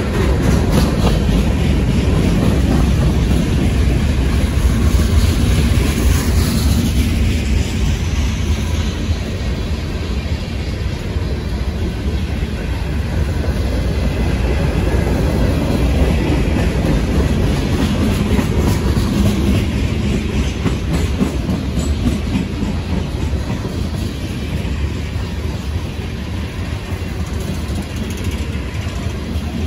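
Freight cars of a long mixed manifest train rolling slowly past: a steady, loud rumble with the wheels ticking over the rails.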